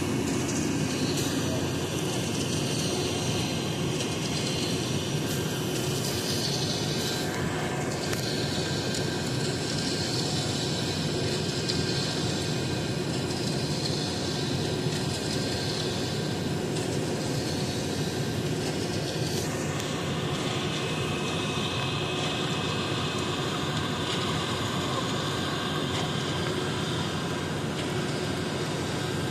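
Concrete-pouring machinery running steadily: a heavy engine drone that holds through, with slight shifts in its higher noise about a third and two-thirds of the way in.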